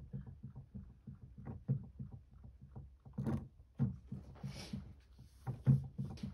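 Digital piano played softly, a run of chords in quick succession with the keys knocking. A brief hiss sounds about halfway through.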